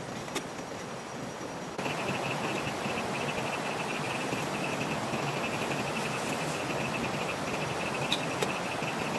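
Night insects chirping in a fast, pulsing trill over a steady hiss, the chirping starting suddenly about two seconds in; a few light clicks near the start and near the end.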